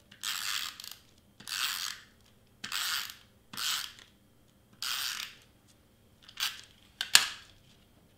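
Handheld adhesive tape runner drawn across cardstock in about seven short strokes, each a dry ratcheting rasp as the tape feeds out; the last stroke is short and sharp.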